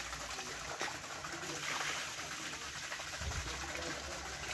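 Water running and splashing steadily over a small working water wheel.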